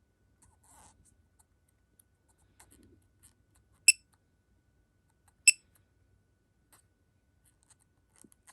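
Quinn 1/2 in. drive digital torque wrench giving two short high-pitched beeps about a second and a half apart as its buttons are pressed, with faint button clicks in between.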